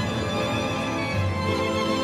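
Orchestral film score with strings playing sustained chords. A deeper bass note swells in about a second in.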